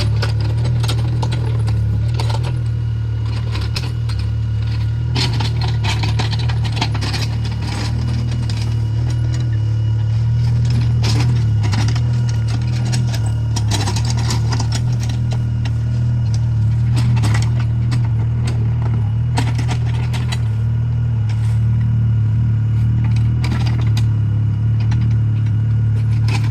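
Mini excavator's diesel engine running steadily, with irregular clanks and rattles of the machine working as it spreads and levels crushed stone.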